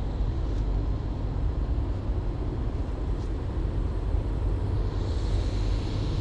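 Steady low outdoor rumble with no distinct machine tone, joined by a soft hiss about five seconds in.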